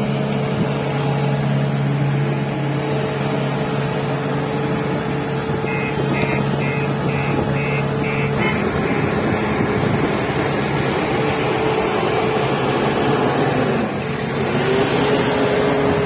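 Heavy diesel engines of an asphalt paver and trucks running at a road-paving job, a steady hum that turns rougher about halfway through. About six short, evenly spaced beeps sound just before the change, and an engine revs up near the end.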